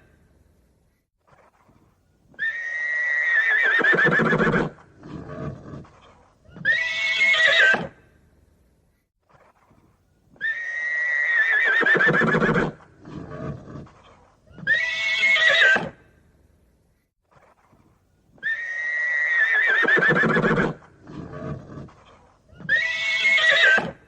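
Horse whinnying. A long neigh of about two seconds with a quavering, slowly falling pitch, then two short softer sounds and a brief second whinny. The same sequence repeats three times, about eight seconds apart.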